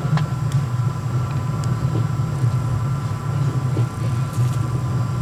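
Steady low rumble of a moving train heard from inside the passenger car, with a faint steady high hum over it and a few light clicks.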